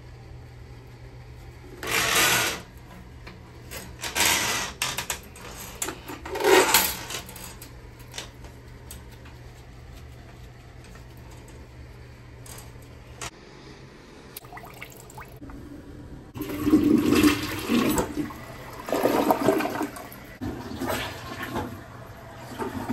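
A toilet flushing, with a loud rush of water over several seconds in the second half. Before it, a steady low hum runs and stops about halfway through, with a few short bursts of noise.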